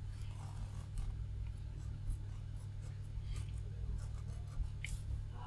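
A pen scratching on graph paper as zigzag resistor symbols and connecting lines are drawn, in short irregular strokes over a steady low hum.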